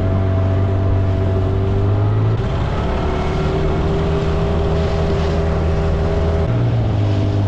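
Small boat's engine running steadily over wash noise. The note drops lower about two seconds in as the throttle eases, then picks back up near the end.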